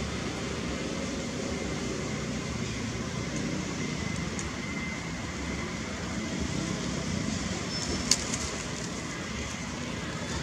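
Steady outdoor background rumble and hiss, with one sharp click about eight seconds in.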